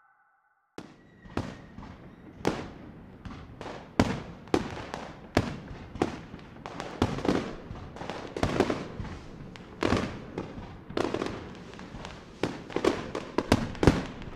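Fireworks bursting: a string of irregular bangs and crackles that starts about a second in.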